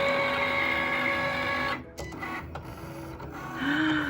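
Cricut cutting machine's motors whining as the carriage moves during a calibration cut. The steady whine stops abruptly a little under two seconds in, and quieter machine movement follows.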